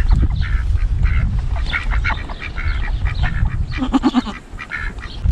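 A group of farm animals calling all around: many short honk-like calls in quick succession, over a steady low rumble.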